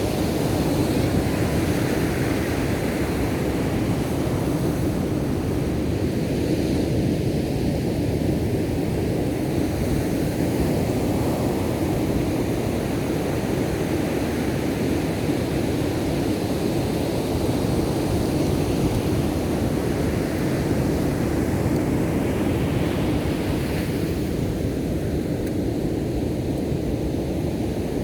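Ocean surf: a steady roar of waves breaking on the shore, rising and falling gently.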